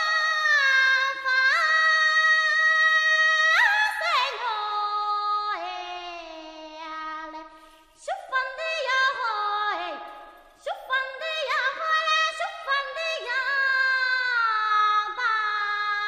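Background music: a single high melody line of long held notes that slide up or down into each pitch, with no bass or beat underneath.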